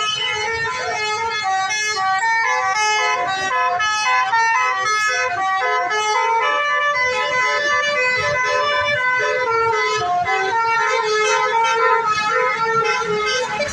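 Bus-mounted 'basuri' musical air horns (telolet horns) playing quick multi-note melodies, the pitch stepping to a new note several times a second without a break.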